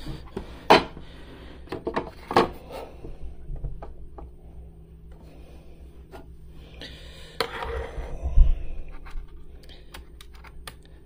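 Handling noises as a small glass and a digital scale are set in place on an espresso machine's drip tray: a few sharp clicks and knocks, the loudest near the end, with scraping and rubbing between, over a faint steady hum.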